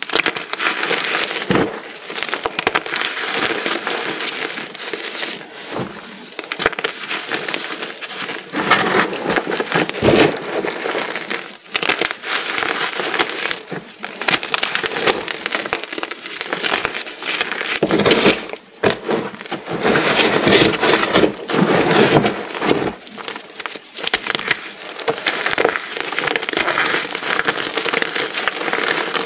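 Small pieces of dyed, reformed gym chalk being crushed en masse: a dense, continuous crunching and crumbling that swells and eases, with a few short lulls.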